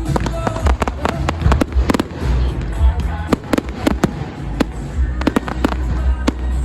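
Fireworks bursting in quick succession: many sharp bangs and crackles, several a second, over loud accompanying music with a heavy bass.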